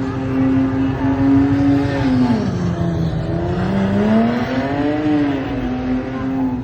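A vehicle engine running steadily, its pitch sliding down about two seconds in and climbing back up as it slows and speeds up again, over a low traffic rumble.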